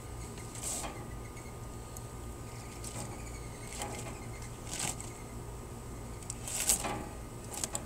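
Aluminium foil crinkling in several short rustles as a foil-wrapped rack of ribs is peeled open, over a steady low hum.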